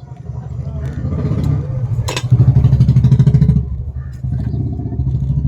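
A motor vehicle engine running close by, a fast low throb that swells and is loudest about two and a half to three and a half seconds in, with one sharp crunch just after two seconds.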